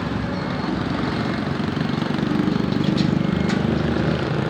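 Bus engine running steadily, swelling louder for a couple of seconds around the middle as the vehicle goes close by.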